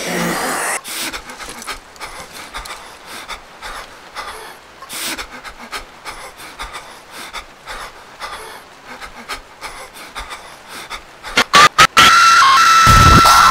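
A person breathing hard and panting, with rustling and small clicks of movement. Near the end come several loud sharp bangs in quick succession, then a sudden, very loud, harsh distorted screech on one steady high pitch.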